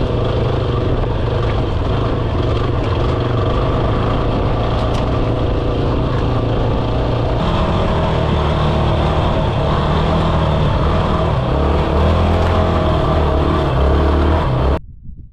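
Yamaha XT250's single-cylinder four-stroke engine running under load as the motorcycle rides off-road, the engine note rising and falling with the throttle. The sound cuts off suddenly near the end.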